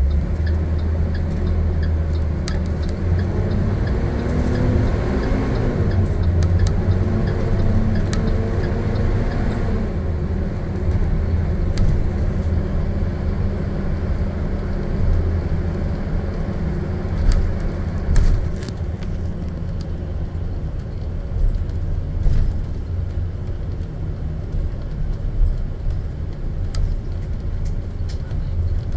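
School bus engine and road noise from inside the cab: a steady low rumble, with the engine note climbing twice in the first ten seconds as the bus pulls through its gears, and occasional rattles from the cab.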